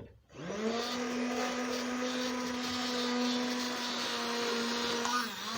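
Electric mixer beating a thick cocoa cream mixture: its motor spins up about a third of a second in to a steady whine, dips briefly near the end, then picks up again.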